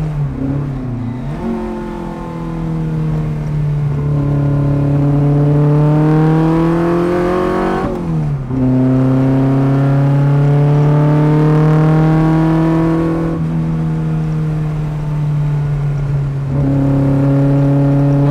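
Fiat Abarth 1000's small four-cylinder engine heard from inside the car at speed, pitch climbing as it accelerates, dropping sharply at a gear change about eight seconds in, easing off around thirteen seconds and picking up again near the end.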